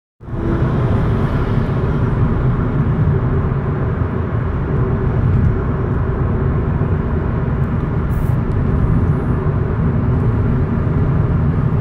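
Steady low road and engine drone inside a moving car's cabin.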